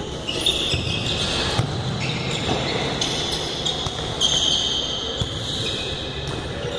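Futsal ball being kicked and bouncing on a hard indoor court, a few sharp thuds echoing in a large hall while players run about.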